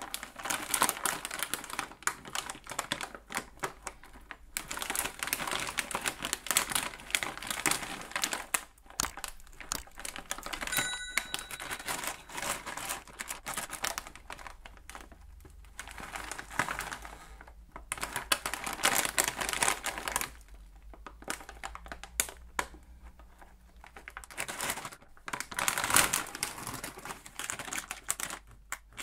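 A plastic snack bag crinkling as gloved hands handle it and turn it over. The crinkling comes in bursts of dense crackle with short pauses between them.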